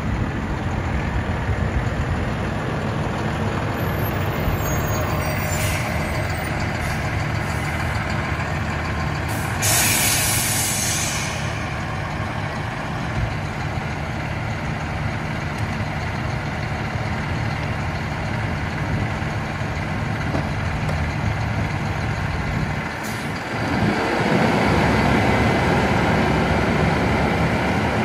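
Diesel engine of a Freightliner M2 rear-loader garbage truck idling, with a loud hiss of released air brakes about ten seconds in. Near the end the engine revs up and a louder, rising drone sets in as the rear packer runs.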